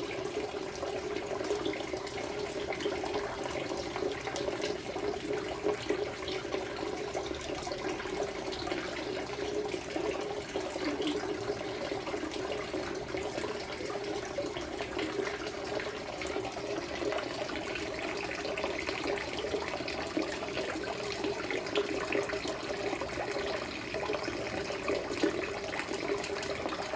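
Water in a fish tank running and splashing steadily, with many small bubbling ticks.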